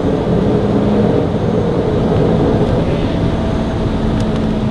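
Steady jet cabin noise inside an Embraer E190 while it taxis: its GE CF34-10E turbofan engines running with a steady low hum.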